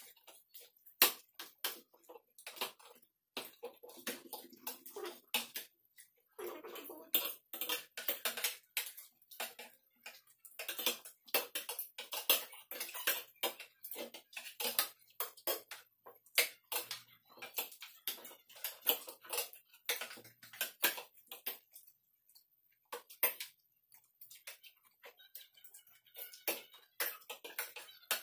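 Spoons and forks clinking and scraping on ceramic plates as several people eat, a steady run of irregular sharp clicks with brief lulls.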